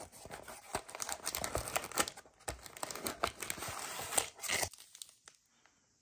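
Foil-wrapped trading card packs and a cardboard display box being handled and pulled apart: dense crinkling and crackling rustles that stop about five seconds in.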